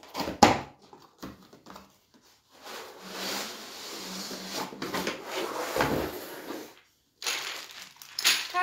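Cardboard game box being opened and a wooden game board slid out of it: a couple of sharp knocks at the start, then several seconds of cardboard scraping with a thump about six seconds in, and more handling near the end.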